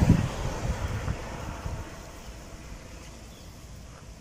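Wind rumbling on the microphone, dying down after about two seconds to quiet outdoor background, with a few faint bird chirps near the end.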